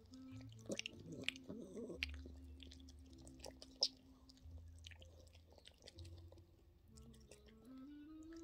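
Yorkshire terrier mother licking at her puppy's emerging amniotic sac during whelping: quick, wet licking and smacking clicks, fairly faint. A faint steady hum and wavering tones sit underneath.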